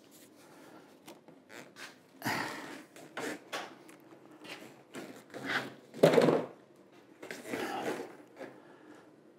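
Shop vacuum hose being pulled out and handled: a series of irregular scuffs, knocks and rustles, the loudest about six seconds in. The vacuum itself is not running.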